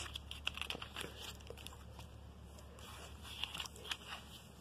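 Paper catalogue pages being handled and turned: faint rustling with small clicks, and a page flip about three and a half to four seconds in.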